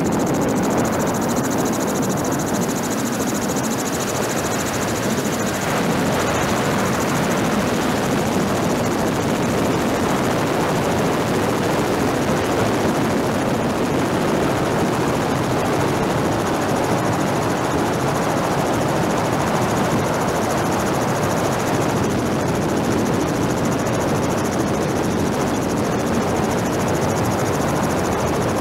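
Helicopter running steadily, its engine and rotor noise heard from on board as a continuous, even rush that does not let up.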